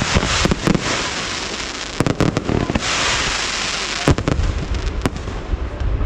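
Fireworks display: a string of sharp bangs from shells bursting overhead, over dense crackling that swells to a hissing shower about halfway through.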